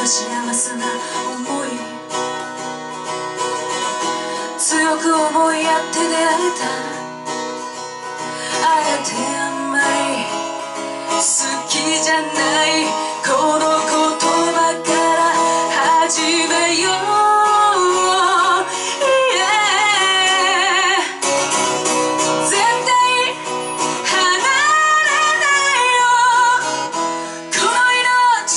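Live band performance: strummed acoustic guitar under a lead singing voice, the sung notes held with vibrato through the second half.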